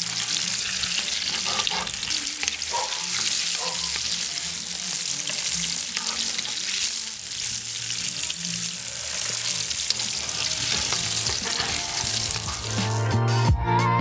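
Breaded chicken wings deep-frying in hot oil in a kazan, a steady crackling sizzle. Music comes in near the end.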